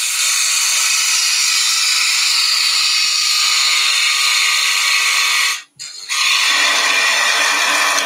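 Quarter-inch bowl gouge hollowing a spinning wooden blank on a lathe: a loud, steady rushing cut as shavings are thrown off. The cut stops for a moment about five and a half seconds in, then carries on.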